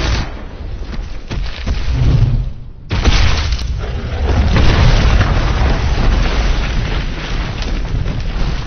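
Loud, deep rumbling and booms of a giant boulder tumbling and crashing down a mountainside, as film sound effects. The rumble eases for a moment, then comes back with a sudden crash about three seconds in and keeps going.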